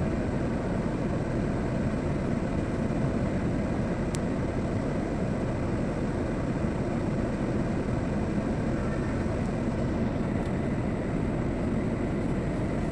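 Heavy diesel machinery running steadily, a constant low engine rumble from the excavator and dump trucks working.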